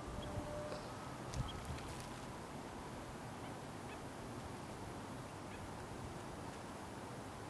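Steady outdoor background noise, with a few brief, faint honk-like tones and small clicks in the first second and a half.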